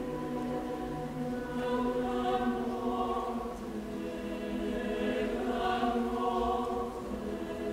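Mixed choir singing a cappella: sustained chords in several parts, swelling twice.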